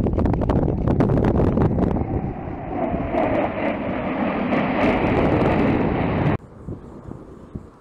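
Jet engine roar from a formation of F/A-18 Super Hornets flying past, with crackling and wind buffeting on the microphone. The roar cuts off suddenly about six seconds in, leaving a much fainter rumble.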